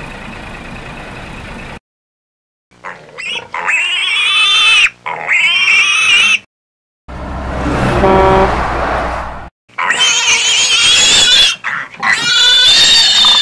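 A vehicle engine runs steadily for the first couple of seconds and cuts off. Then a pig squeals in repeated high-pitched, wavering cries, broken in the middle by a loud rushing noise of a couple of seconds.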